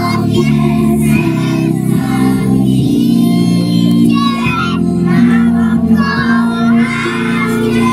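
A group of young children singing a song together in unison, over a musical accompaniment with steady held chords.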